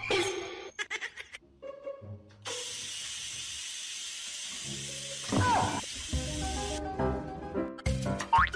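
A steady hiss lasting about four seconds, with a short sliding tone near its end. Background music takes over from about six seconds in.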